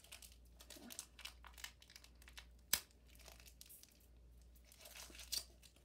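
Trading-card pack wrapper crinkling and tearing as it is opened, faint, with one sharp click nearly three seconds in.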